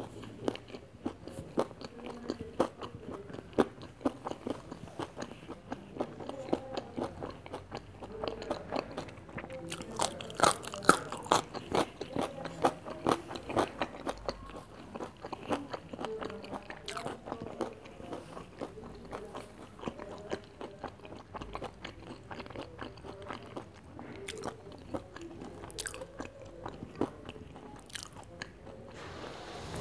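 Close-miked biting and chewing of a chicken zinger burger, a crispy fried chicken fillet in a soft bun: a steady run of crunches and chews, loudest about ten to thirteen seconds in.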